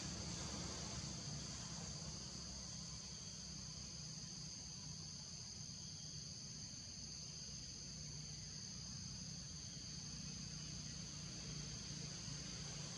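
A steady insect chorus, a continuous high-pitched drone at two close pitches, over a low steady rumble.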